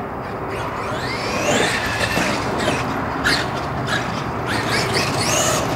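Brushless electric motor of a Traxxas X-Maxx RC monster truck whining as it is driven, its pitch sweeping up and down with the throttle several times, with a rising sweep about a second in and more near the end.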